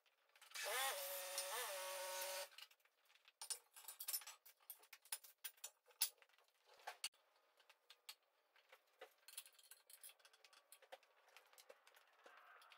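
Steel scraping on steel with a wavering squeal for about two seconds, as the wheel centre with its clamped box-section jig comes out of the rim. It is followed by scattered light metallic clicks and knocks as the steel box-section and clamps are handled on the concrete floor.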